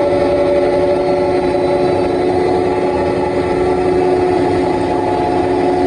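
Tractor running steadily under load while pulling a power harrow through heavy soil at slow working speed, a constant drone with a steady whine held at one pitch.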